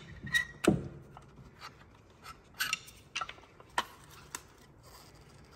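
Metal clicks and clinks of new brake pads, their retaining spring and a screwdriver against a Porsche Macan Turbo's front brake caliper as the pads are worked into place. A louder knock with a short ring comes under a second in, then several lighter, scattered clicks.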